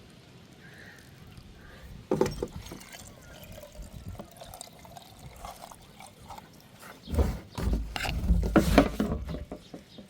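Water splashing and pouring in irregular bursts. It starts suddenly about two seconds in and is loudest near the end.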